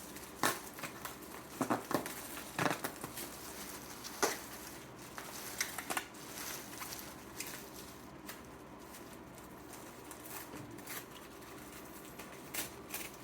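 Packing material and paper rustling and crinkling as a package is unpacked by hand, with scattered sharp clicks and knocks, most of them in the first half.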